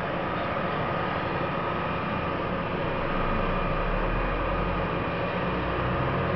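Vibroseis (thumper) trucks running steadily, a mechanical drone with a thin steady whine over a low rumble; near the end a deeper low hum begins to build.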